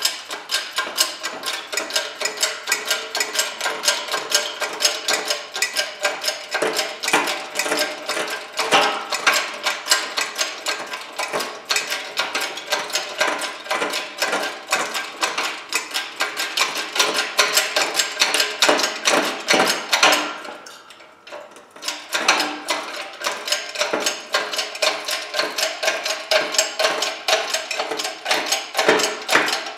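A 20-ton hydraulic shop press being pumped to drive a splitting blade into a small DC motor armature: a steady rhythmic clicking, about two to three clicks a second, with one short break about two-thirds of the way through.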